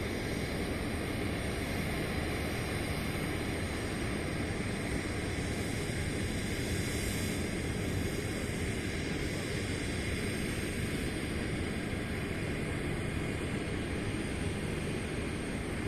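Distant Boeing 737-800 jet engines (CFM56-7B turbofans) running at low taxi power as the airliner rolls along the airfield: a steady, even noise with no change in level.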